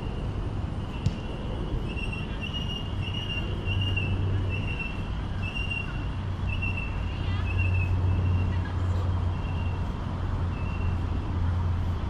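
Traffic with a motor vehicle's engine running, under a run of short, high-pitched tones repeating about once or twice a second.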